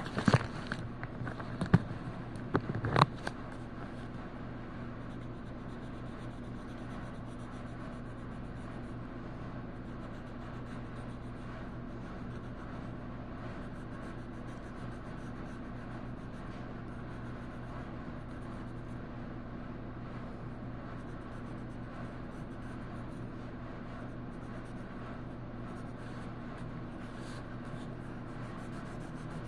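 Colouring by hand: a colouring implement rubbing and scratching on paper, over a steady low hum. A few sharp clicks sound in the first three seconds.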